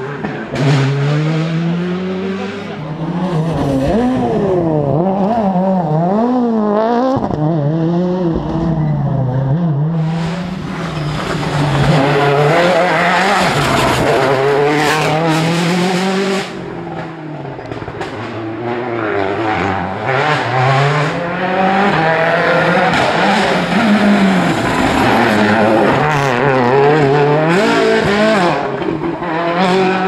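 World Rally Cars, a Citroën Xsara WRC and then Citroën C4 WRCs, with turbocharged four-cylinder engines revving hard through tight bends. The engine pitch rises and falls with each gear change, with sharp pops mixed in. The sound cuts abruptly from one car to the next a couple of times.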